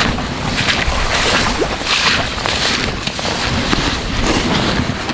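Wind buffeting the microphone with a heavy low rumble, over rustling and scattered small knocks as someone moves through dry grass and among gear in an inflatable boat.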